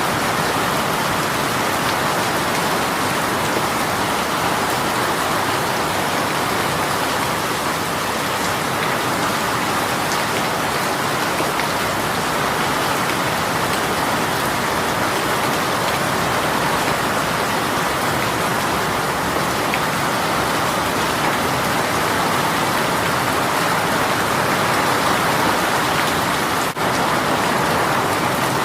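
Rain shower falling steadily, a dense even hiss of drops on surfaces, with a momentary drop in level near the end.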